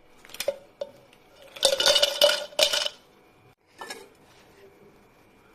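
Ice cubes dropped clinking into a drinking glass, the glass ringing: a few single clinks, then a loud clattering run about a second and a half in, and one last clink near four seconds.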